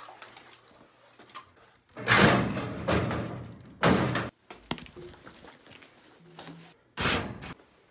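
Metal locker door and gear clattering as uniform items are hung on the locker's hooks and the door is handled: three loud bangs, about two, four and seven seconds in.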